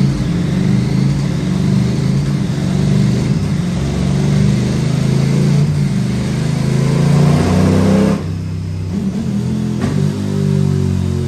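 2018 KTM 1290 Super Duke R's 1301 cc V-twin, breathing through a full Akrapovic race exhaust and an airbox-less DNA intake, pulls up through the revs under load on a roller dyno, rising steadily for about eight seconds. The throttle then shuts and the engine drops back to lower revs.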